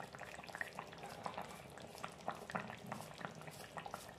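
Fish curry gravy simmering in a pan, a faint bubbling with many small, irregular pops.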